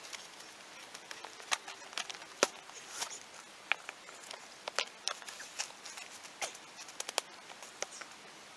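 Footsteps and handling on loose rock and gravel: scattered, irregular sharp clicks and knocks of stones shifting underfoot as concrete-mix bags are set in place, the loudest knock about two and a half seconds in.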